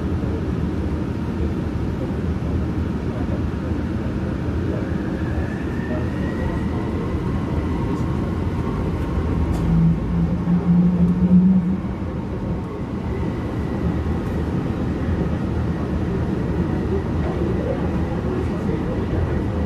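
Yongin EverLine Bombardier ART 200 light-metro train running between stations, heard from inside the car: a steady low rumble of wheels on rail. About five seconds in, a whine rises to a steady high pitch and holds. A louder low drone lasts for about a second and a half near the middle.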